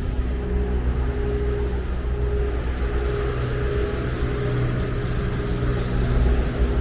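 Bus engine idling with a steady low rumble and hum. A brief hiss comes about five seconds in.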